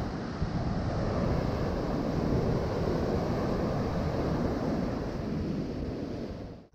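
Surf breaking and washing up a sandy beach, mixed with wind buffeting the microphone: a steady rushing noise that cuts off abruptly at the very end.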